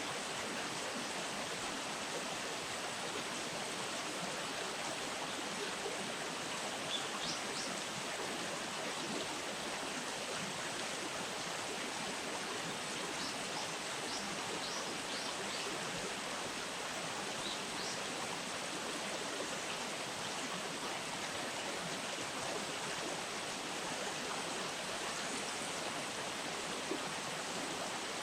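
Steady rush of flowing river water. A few faint, short, high bird chirps come through it about a quarter of the way in and again around the middle.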